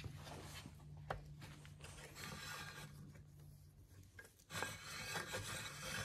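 Metal rubbing faintly as the transmission output shaft nut is threaded onto the shaft by hand. About four and a half seconds in, a tool is fitted over the nut and turned, giving a louder, continuous metal scraping as the nut is snugged up.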